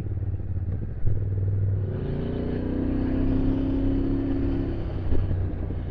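Motorcycle engine running steadily on the road, with a knock about a second in and a pitched engine note that swells and slightly rises from about two seconds in, then fades near five seconds.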